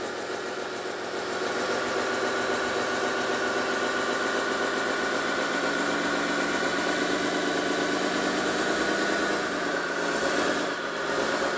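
Simulated diesel engine sound from the sound module of a 1/14-scale RC hydraulic dozer, running steadily through its speakers. It grows a little louder about a second in as the dozer pivots left and right on its tracks.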